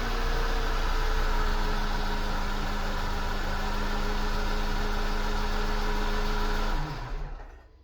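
Mercedes car engine idling steadily just after a start, then switching off about seven seconds in and running down to quiet.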